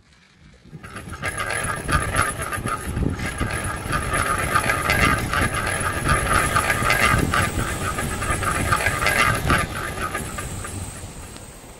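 Train running on rails, its wheels clattering quickly. It swells in about a second in and fades away near the end.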